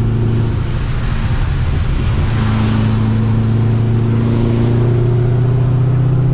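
Supercharged Corvette C6's LS3 V8 running under way, heard from inside the cabin. Its steady note breaks up briefly into a rush of noise about two seconds in, then settles and climbs slowly in pitch toward the end.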